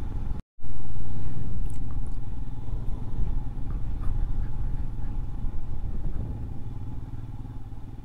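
Motorcycle riding along a road, its engine and road noise heard as a steady low rumble with wind on the microphone. The sound cuts out completely for a moment about half a second in, then comes back and slowly eases off.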